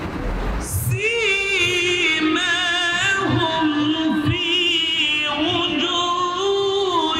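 A man chanting the Quran in melodic tajweed recitation, one voice holding long drawn-out notes with ornamental turns, starting about a second in.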